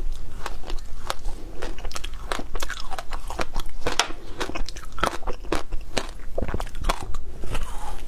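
Hard passion fruit ice being bitten and chewed close up: many sharp, irregular crunches and cracks of ice breaking between the teeth.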